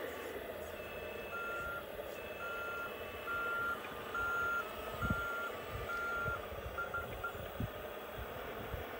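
Reversing beeper on a Kabolite K988 1/14-scale RC hydraulic wheel loader, sounding about six steady, evenly spaced beeps while the loader backs up, then a few quick chirps as it stops. A steady whine runs underneath, with a couple of low thumps in the second half.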